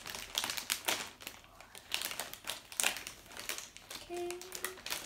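Plastic M&M's snack bags crinkling and crackling as they are torn open by hand, in an irregular run of sharp crackles.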